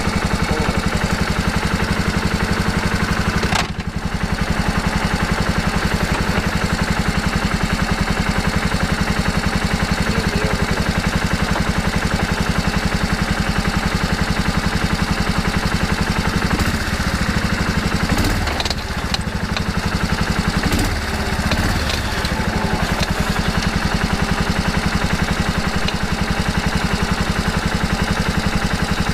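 Kawasaki Prairie 360 ATV's single-cylinder four-stroke engine running steadily, its speed shifting briefly about two-thirds of the way through.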